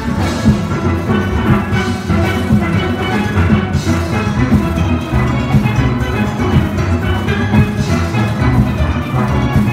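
A steel orchestra rehearsing: a full band of steelpans, from small pans on stands to ranks of oil-drum bass pans, playing a tune together.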